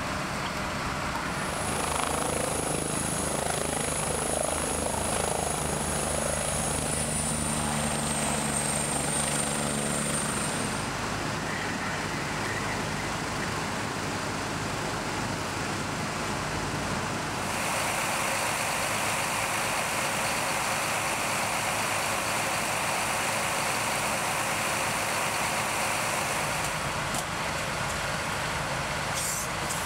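Heavy engines running steadily: a low drone with a high whine over the first ten seconds or so, then a plainer engine drone. The sound changes abruptly about 11 and 17 seconds in.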